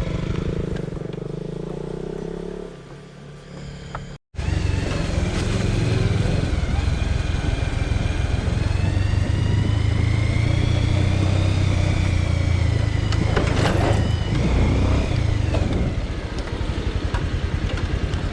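Motorcycle running under way. There is a brief dropout about four seconds in, after which the engine runs louder and steady.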